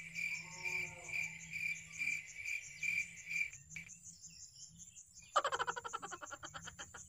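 Frogs and insects calling. A repeated call comes about twice a second for the first three and a half seconds, over a steady high insect buzz. Then a fast rattling croak lasts about a second and a half near the end.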